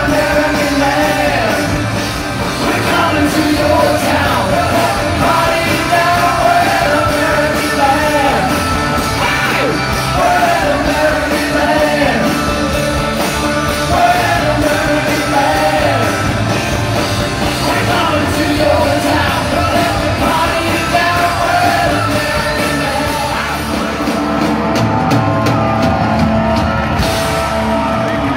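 Live rock band playing loud: lead vocals over electric guitars, bass and drums. Near the end the drums and cymbals hit out a closing run as the song finishes.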